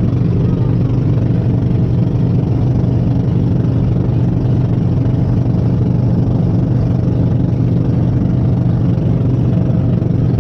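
Engine of a motorized bamboo-outrigger boat (banca) running steadily under way, a loud constant drone.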